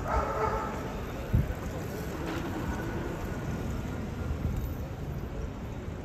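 Street ambience: a steady low rumble of city traffic, with a single thump about one and a half seconds in.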